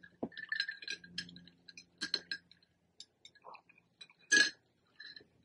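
Metal straw stirring ice in a glass of iced cold brew coffee, making scattered light clinks and ticks, with one louder, longer sound a little past four seconds in.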